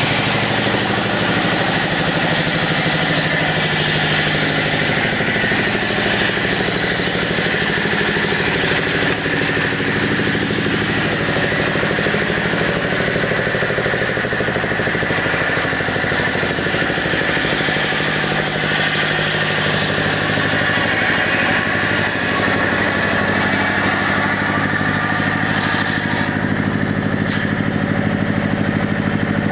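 Chainsaw engine running steadily at a constant pitch, cutting wood into planks.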